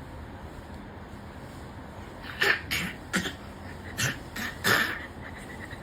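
Short coughs, about six in quick succession, starting about two and a half seconds in.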